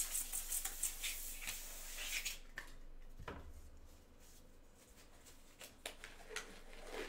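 Crinkling and rustling of a plastic wrapper being handled, dense for the first two seconds, then a soft thump about three seconds in and a few light taps.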